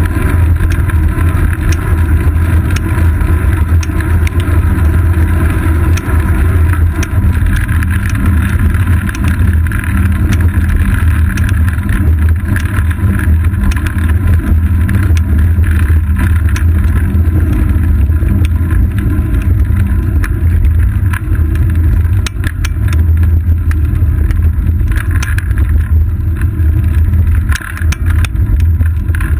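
Steady loud low rumble of wind buffeting and road vibration from a bicycle rolling on asphalt, picked up by a camera mounted on the bike's seat post, with scattered small clicks and knocks from bumps in the road.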